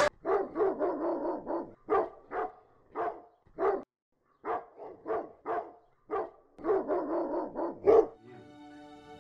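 An animated dog character talking in short, yapping barks, muffled through a closed office door. The barks come in quick runs several a second, with a brief pause about four seconds in. Faint soft music tones come in near the end.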